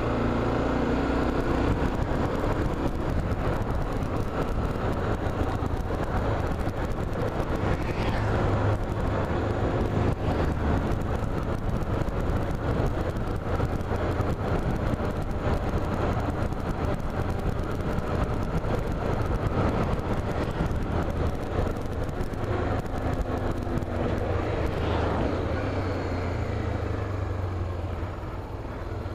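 Motorcycle engine running on the move under steady road noise, its note rising and falling a few times with speed.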